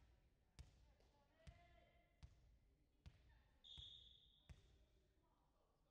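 Volleyball bounced over and over on a hardwood gym floor, a faint thud about every three-quarters of a second, as the server readies to serve. A short referee's whistle blast, which signals the serve, sounds a little past the middle.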